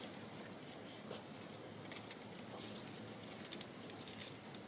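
Faint, irregular ticking and scuffing of Bernese Mountain Dog puppies' paws moving on loose gravel, over a low steady background hum.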